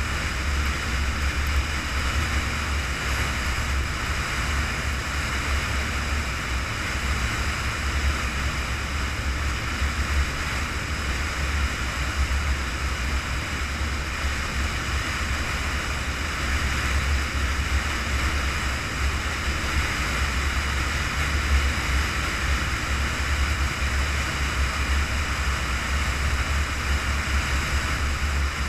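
Steady road and engine noise of a car cruising on a paved highway: a constant deep hum with tyre hiss above it, unchanging throughout.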